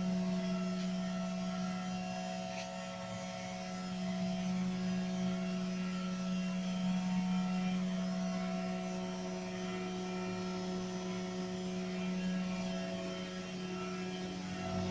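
Steady hum of a natural gas metering and regulating station in operation: one strong low tone with fainter higher tones above it, unchanging except for slight dips in level.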